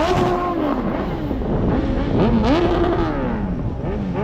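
A car engine revved twice, the pitch jumping up, holding briefly, then sliding back down each time.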